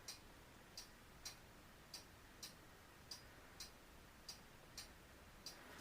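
Faint, regular ticking about twice a second, in an otherwise quiet room.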